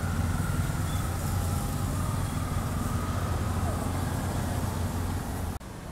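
Steady low rumble of background noise with faint voices, cutting off abruptly about five and a half seconds in.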